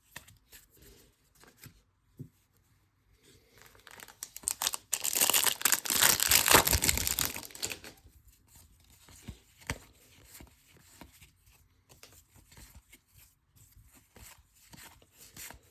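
Trading-card pack wrapper being torn open, a loud ripping and crinkling about four seconds in that lasts some four seconds, with faint rustling of cards and wrapper handled before and after.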